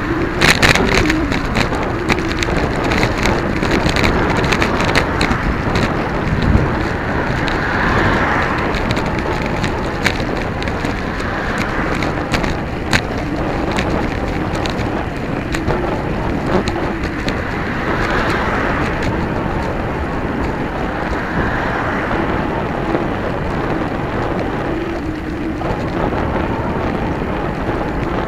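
Steady wind rush over the microphone of a camera on a moving bicycle, mixed with tyre noise on a wet road. Sharp rattles and knocks come through as the bike goes over bumps, most of them in the first few seconds.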